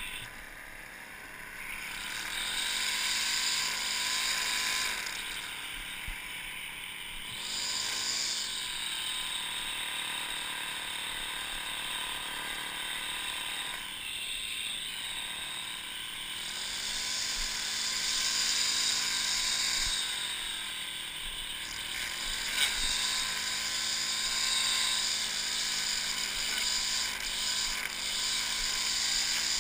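String trimmer running, its motor pitch sagging and recovering several times as the line cuts into grass and brush. A single sharp tick sounds about two-thirds of the way through.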